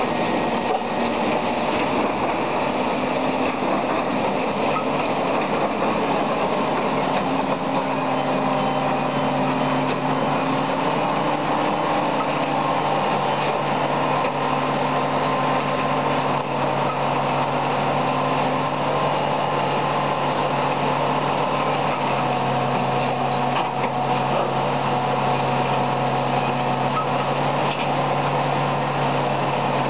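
Track renewal machine running steadily as it works along the line: a constant engine hum over a dense mechanical clatter, its pitch stepping slightly a couple of times.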